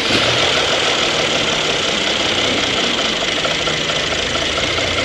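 Mercedes-Benz engine with about 100,000 km on it, running steadily just after being started. It has a faint 'ta-ta-ta' timing-chain rattle that sets in about two seconds after the start; at this small level the rattle is normal, not a fault.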